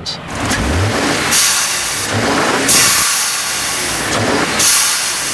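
Turbosmart Smart Port blow-off valve on a 3.5L EcoBoost V6 venting boost with a loud hiss three times as the engine is revved and the throttle released, between the engine's rises in pitch. The middle hiss is the longest.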